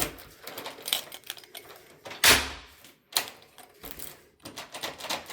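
Clicks and knocks of a door lock being worked: a newly fitted Euro cylinder lock with thumb turn, with one louder thud about two seconds in.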